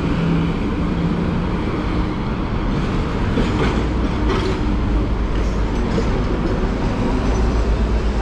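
Hong Kong double-decker tram running along its rails through a curve, its wheels clicking about three to four seconds in, over steady street traffic and idling bus engines.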